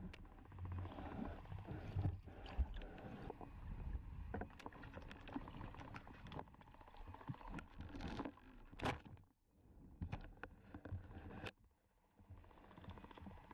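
Muffled underwater noise picked up by a waterproof camera's microphone while a snorkelling spearfisher swims: low rumbling water movement with scattered clicks and knocks, one louder knock about nine seconds in.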